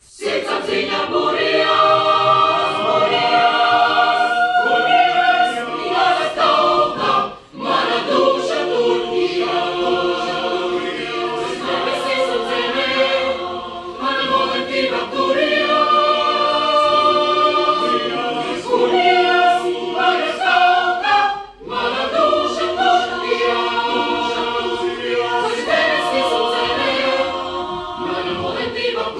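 Mixed choir singing a cappella in Latvian, many voices in sustained chords. The choir comes in together right after a moment of silence, and the singing breaks off briefly twice between phrases.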